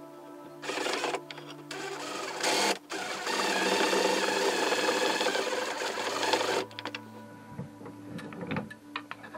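DeWalt cordless driver running a screw into a table saw's height-adjustment handwheel: a few short bursts, then one longer run of about three seconds that stops suddenly.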